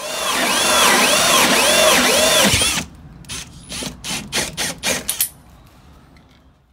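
Drill driving a hole saw through wood siding: a steady cutting run with a wavering pitch for nearly three seconds, then a string of short bursts, then it fades out.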